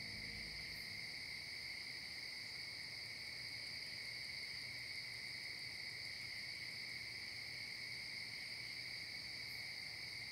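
Steady chorus of insects, a constant high-pitched hum that holds unbroken with no beat or change.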